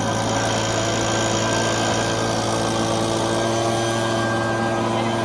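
An engine running steadily at a constant speed, an even hum with no revving.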